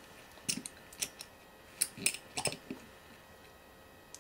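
Small metal instrument parts being handled: a scattering of light clicks and taps for the first couple of seconds, then quiet.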